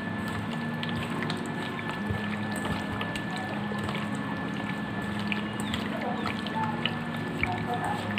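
Hand squelching and mixing raw chicken pieces in a wet marinade paste in a steel bowl, with many small wet clicks, over a steady background hum.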